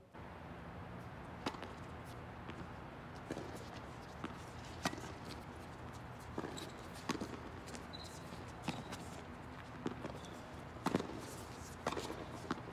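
Tennis rally on a hard court: a dozen or so sharp knocks, roughly one a second, as rackets strike the ball and it bounces on the court, with footsteps between.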